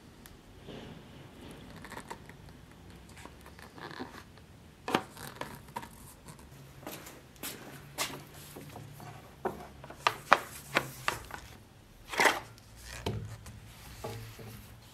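Handling noise of a messer sword and its leather-covered scabbard: a series of sharp clicks and knocks, thickest in the second half, with a short scrape about twelve seconds in, as the pieces are handled and set down on a wooden table.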